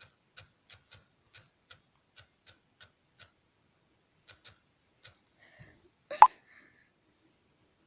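Phone touchscreen keyboard clicking as a message is typed, about three taps a second, then a few more. About six seconds in comes a single short, loud pop with a brief tone.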